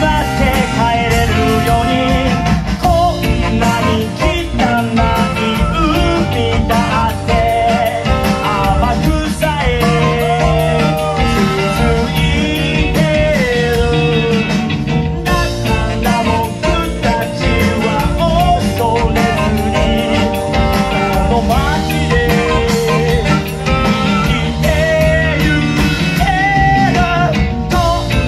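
Live rock band playing loudly and steadily: drums, electric bass, electric guitar and wind instruments, with a lead melody line over the beat.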